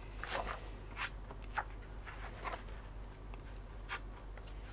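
Pages of a spiral-bound paper manual being turned and handled: soft rustles and a few light ticks at irregular moments.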